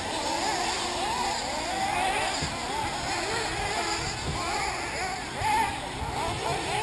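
Several 1/8-scale nitro RC buggies racing, their small two-stroke glow engines buzzing at high pitch, each rising and falling over and over as the cars accelerate and back off through the corners.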